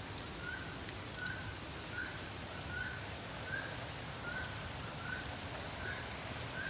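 Steady rain falling, with a bird repeating a short, high call about once every three-quarters of a second.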